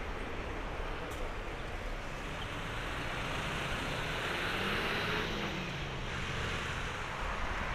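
Airbus A320-214's CFM56-5B turbofan engines running at taxi power as the airliner rolls slowly onto the runway: a steady rushing whine that swells a little about halfway through.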